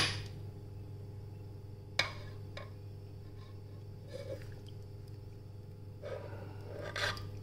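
Vegetable oil poured from a bottle into a stainless-steel mixer-grinder jar of sugar near the end, a soft pouring sound over a steady low hum. A single sharp click comes about two seconds in.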